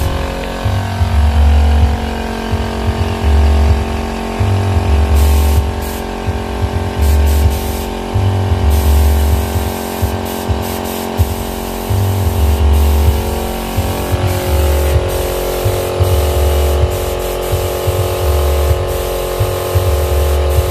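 Air spray gun hissing steadily as epoxy primer is sprayed, the hiss breaking off briefly now and then. Underneath are a steady hum and a low thudding pulse about once a second.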